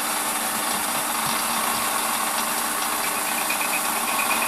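WARCO bench lathe running, its headstock spinning an end mill, with a steady mechanical hum and whir. A faint, rapidly pulsing high tone joins about three seconds in.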